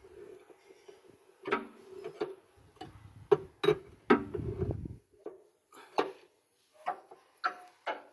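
Irregular metallic clicks and knocks of a ratchet wrench and a spanner being worked on a fitting at a crane's winch drum. A low rumble runs under the clicks for a couple of seconds in the middle.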